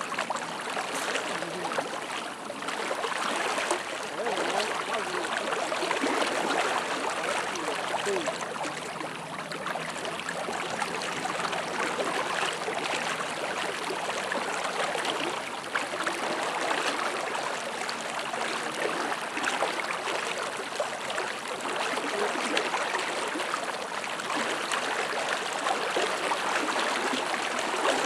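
Fast current of a flooded river rushing and gurgling steadily.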